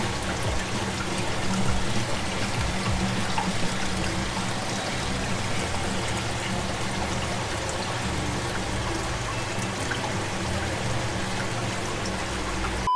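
Water pouring and trickling steadily through an aquarium filter compartment packed with ceramic biofilter media, the filter's circulation pump running, with a steady low hum underneath.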